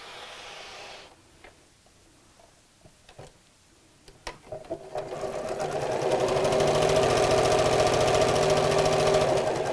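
An electric domestic sewing machine starts about halfway through and then stitches steadily at an even, fast needle rhythm, sewing two fabric pieces together along a curved edge. Before it starts there are a few soft clicks of handling.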